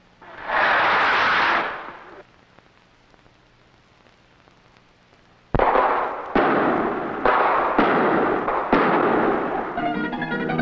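A signal rocket hisses up for about a second and a half. About three seconds later come five sharp bangs, each ringing out and echoing, under a second apart: the whale-alarm rockets fired to call the whaleboat crews. Plucked-guitar music comes in near the end.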